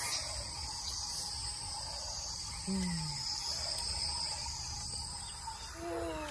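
Steady, high-pitched insect chorus, with a brief low falling call about three seconds in.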